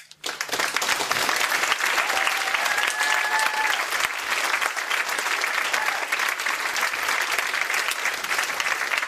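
A crowd applauding, dense steady clapping that starts just after the title card appears.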